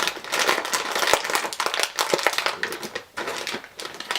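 Plastic snack bag of steak-flavoured noodle chips crinkling and crackling as it is handled and opened. The crackle is dense for about three seconds, then thins out.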